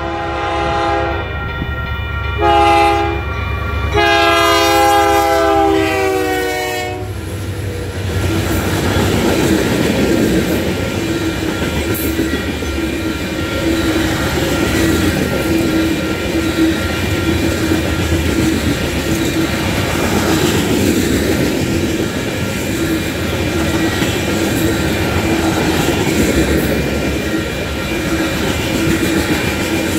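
Union Pacific freight locomotive's multi-chime horn sounding the last blasts of a grade-crossing signal: a long blast ending, a short one, then a long one whose pitch drops as the locomotive passes. After that, grain hopper cars roll by with a steady rumble and wheel clatter on the rails.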